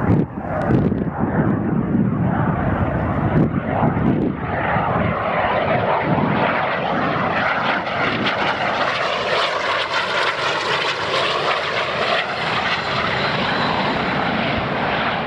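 Engines of a LOT Embraer regional jet passing low overhead on final approach: a loud, steady jet noise with a sweeping, phasing tone as it goes over. The noise is unusual for an airliner and sounds like a low-flying F-16.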